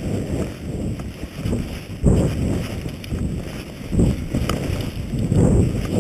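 Low rumbling road noise inside a moving car, then, from about two seconds in, wind buffeting an action camera's microphone in irregular gusts.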